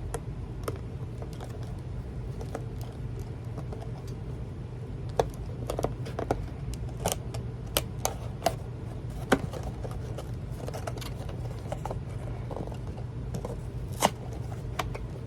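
Cardboard trading-card box being handled and opened from the bottom: scattered crinkles and sharp clicks, the loudest about nine and fourteen seconds in, over a steady low hum.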